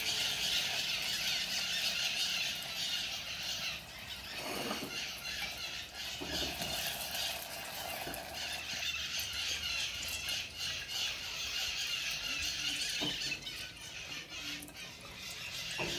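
Batter fritters deep-frying in hot oil in a metal pot, a steady crackling sizzle that thins for a few seconds and then picks up again.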